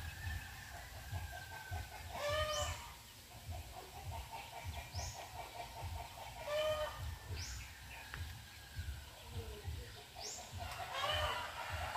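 Chickens clucking and calling: a short arched call comes every few seconds, with runs of soft rapid clucks between them and thin high rising chirps.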